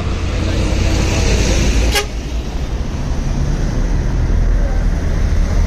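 Road traffic with a vehicle horn sounding in the first two seconds, over a heavy low rumble; a sharp click about two seconds in.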